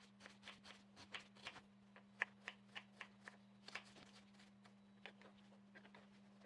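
Kitchen knife dicing an onion on a wooden cutting board: quick, light, irregular taps, about three a second, thinning out after about four seconds. A faint steady low hum runs underneath.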